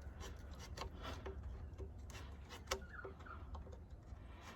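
Faint rubbing and scattered light clicks of hands working on parts of the machine, with one sharper click a little past halfway, over a steady low rumble.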